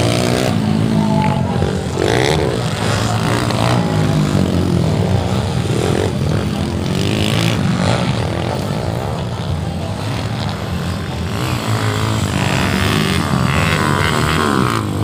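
Several motocross dirt bikes racing, their engines revving up and down with overlapping pitches that rise and fall.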